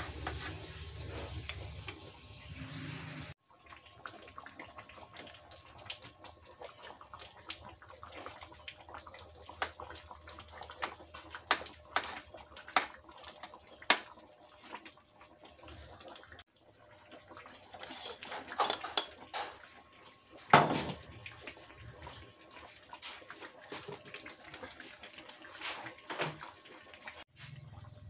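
Metal spoon clinking, knocking and scraping against a stainless steel pan as a thick pork stew is stirred: scattered sharp clinks, the loudest about two-thirds of the way through. A low hum runs for the first few seconds and cuts off suddenly.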